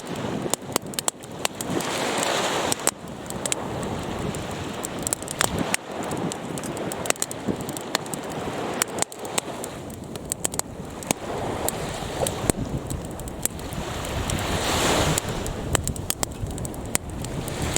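Fire burning with a steady rushing noise and many sharp crackles and pops. The rush swells for a moment near the end.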